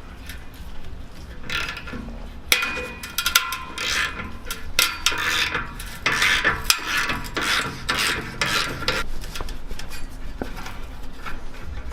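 Hand ratchet clicking, with metal scraping and clinking, as a 15 mm bolt on the exhaust clamp between the resonator and the muffler is worked loose. The quick clicks come in runs, busiest from a couple of seconds in until near the end.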